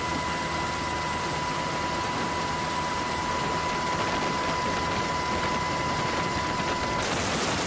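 A steady rushing noise with a steady high tone over it; the tone cuts off suddenly about seven seconds in.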